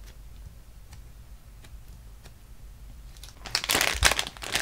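A few faint soft ticks, then from about three and a half seconds in, loud crinkling of a clear plastic bag wrapped around a squishy toy as it is picked up and handled.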